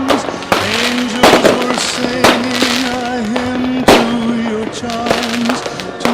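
Fireworks bursting, several sharp bangs with crackling, the loudest about four seconds in, over music with long held wavering notes.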